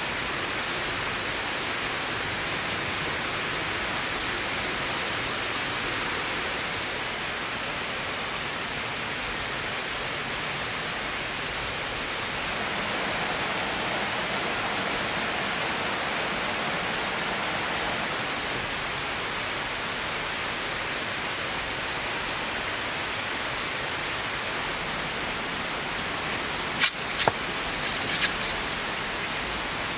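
Steady rushing noise throughout, with a few sharp metallic scrapes and knocks near the end as a metal pizza peel is slid under the clay baking pan on the stone oven floor.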